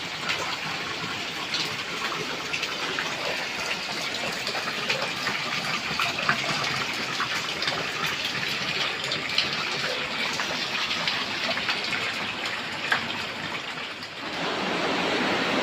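Rainwater pouring and splashing into a rainwater collection pit, a steady gushing with scattered drip-like clicks. About fourteen seconds in it changes suddenly to a louder, fuller rush of water.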